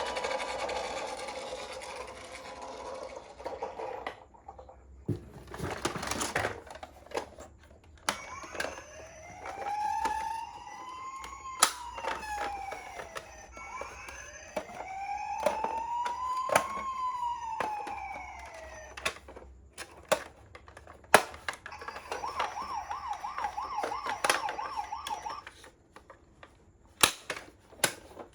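Toy ambulance minicar's small electronic siren: two slow wails that rise and fall over about five seconds each, then a fast warbling yelp a few seconds later. Sharp clicks and knocks from the plastic toy being handled are scattered throughout, and a buzzing tone fades out in the first few seconds.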